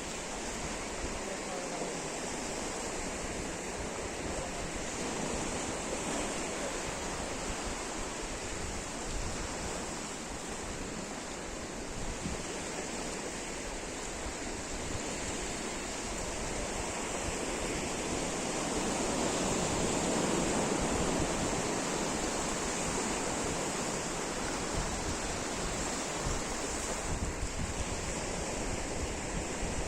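Sea surf washing onto the beach: a steady rush of waves that swells louder about two-thirds of the way through, then eases back.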